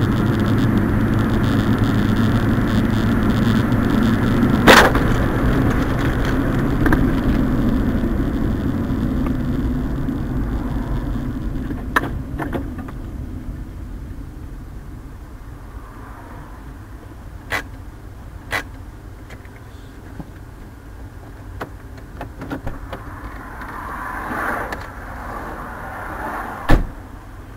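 Road and engine noise inside a moving car, as picked up by a dashcam, fading gradually, with several sharp knocks; the loudest comes about five seconds in and another strong one near the end.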